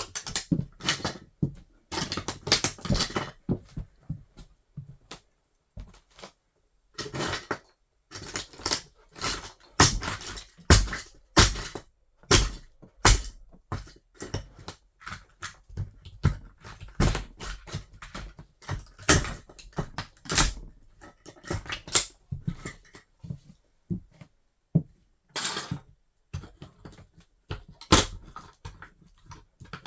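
Toy car crunching and cracking under a wedge sandal, in irregular snaps and crunches with a few loud sharp cracks between quieter crackling.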